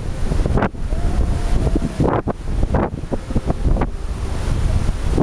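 Wind buffeting the camera microphone: a constant low rumble that swells in uneven gusts.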